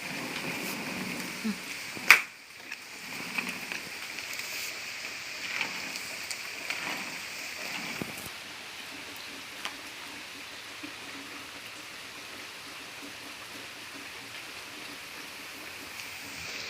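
Steady rain falling, with a few faint clicks and one sharp knock about two seconds in.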